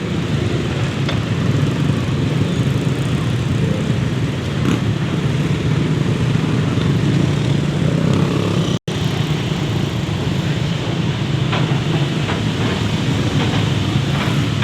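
Ferry's diesel engines running with a steady low rumble, cutting out for an instant about nine seconds in.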